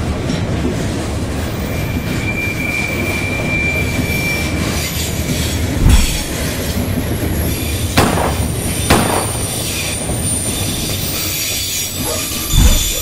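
Loaded freight flatcars rolling past on the rails: a steady heavy rumble and clatter of wheels on track. A thin wheel squeal is held for a couple of seconds early in the passage, and a few loud thumps stand out, about six and eight seconds in and again near the end.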